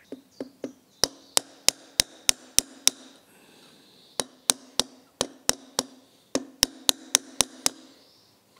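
Small hammer tapping a metal punch to drive the throttle spindle and its stuck bearing out of a Weber 40 DCOE carburettor body. The taps are sharp and come in runs of about three a second with short pauses, each run leaving a faint low ring.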